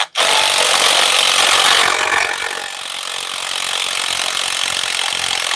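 Impact wrench running continuously while backing out a bolt on a Detroit DT12 automated transmission, a harsh hissing rattle. It is fuller and louder for about the first two seconds, then evens out a little quieter.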